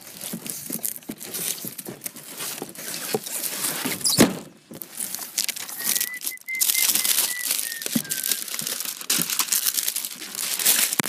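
Plastic packaging crinkling and rustling as it is handled, with the cardboard box being moved about. A single thump about four seconds in, and a faint high whistling tone for about two seconds past the middle.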